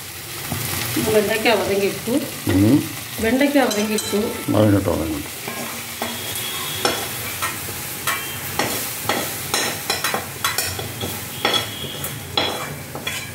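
Sliced bitter gourd sizzling as it fries in oil in a kadai, with a ladle stirring and scraping against the pan. From about halfway through, the scrapes and taps of the ladle come roughly once a second.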